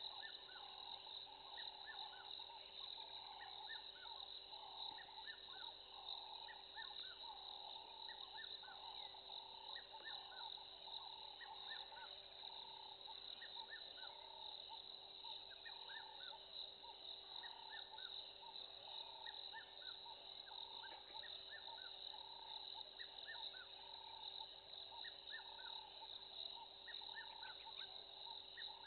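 Faint insect chorus: a steady high trill, with many short chirps and a pulsing call repeating about once a second.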